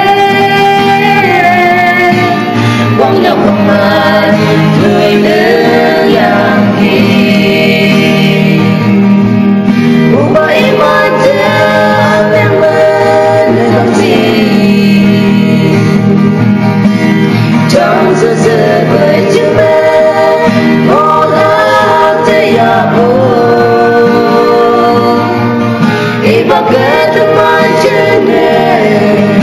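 A song: a voice singing a melody over steady instrumental accompaniment with a sustained low bass line.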